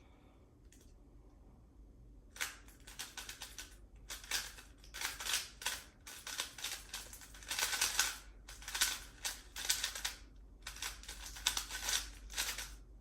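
GAN356 i smart 3x3 speedcube being turned fast in a speedsolve: bursts of rapid plastic clicking and clacking, broken by short pauses. It starts about two seconds in and stops just before the end.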